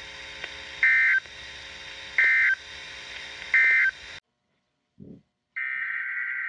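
Three short bursts of warbling data tones from a NOAA Weather Radio broadcast, about a second and a half apart, over faint radio hiss: the SAME end-of-message code closing the severe thunderstorm warning. The sound cuts out, and after a short gap a longer burst of the same tones begins, the SAME header of the next alert.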